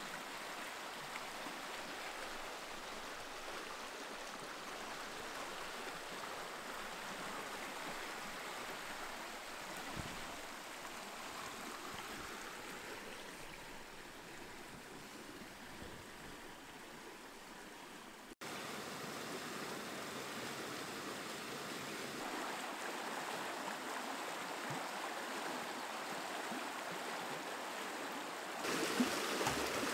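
Steady rushing water. It dips slightly, then changes abruptly about two-thirds of the way through and steps louder near the end.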